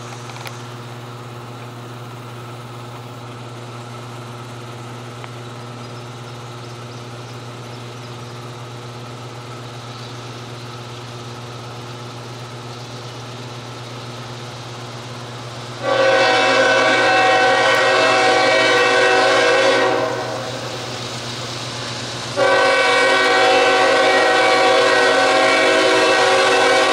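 CSX GE ES44AH freight locomotive sounding its air horn for a grade crossing: two long blasts, the first about four seconds long starting about 16 seconds in, the second starting about 22 seconds in and still going at the end. Before and under the horn, the approaching train makes a steady drone.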